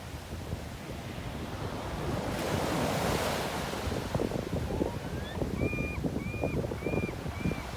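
Sea waves washing on the shore, with wind buffeting the microphone; a wave swells up about two to three seconds in. Near the end, four short high-pitched calls sound in a row.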